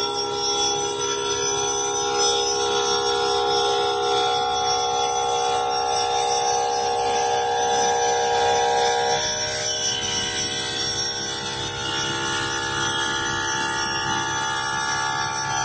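Spindle of a stone CNC machining centre grinding the curved edge of a marble piece under water coolant: a steady whine of several tones over a hiss of spraying water. The tones shift about four and again about nine seconds in.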